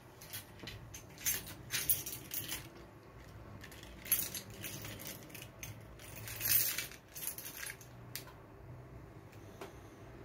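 Light clinking and jingling of small hard objects in a few short clusters, over a faint low steady hum.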